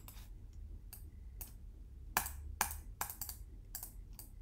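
Computer keyboard typing: a dozen or so irregular key clicks, with two louder clicks a little past two seconds in, over a low steady hum.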